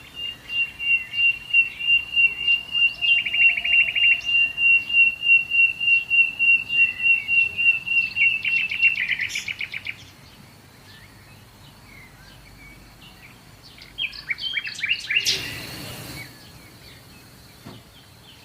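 Small birds chirping: a fast run of evenly repeated high chirps broken by short trills for the first half, then quieter. A brief rushing noise comes with a second burst of chirps about fifteen seconds in.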